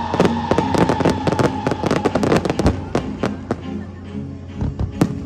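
Aerial fireworks going off in a rapid series of crackling bangs for about three and a half seconds, thinning out, with a few more sharp bangs near the end.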